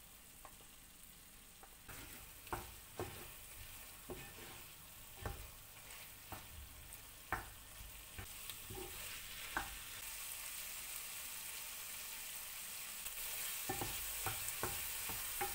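Faint, irregular clicks and light taps over a soft hiss that grows a little louder in the second half.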